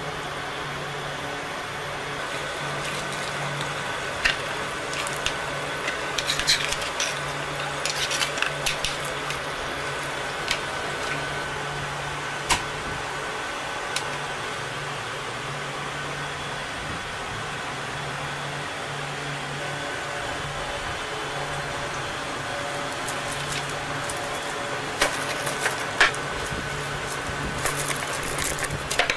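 Steady hum of crayon-moulding factory machinery, with scattered light clicks and clatter, a cluster of them a few seconds in and another near the end.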